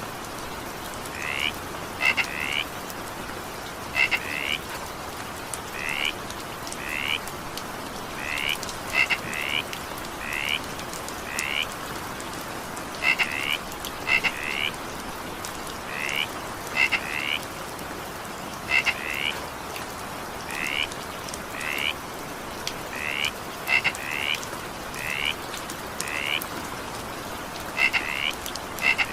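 Frogs calling in short, high croaks, single or in quick pairs, about one a second, over the steady hiss of falling rain.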